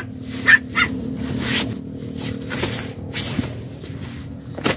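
Nylon fabric rustling in a series of short swishes as a folded inflatable mat with a red valve is pulled from its stuff sack and spread out, over a steady low hum.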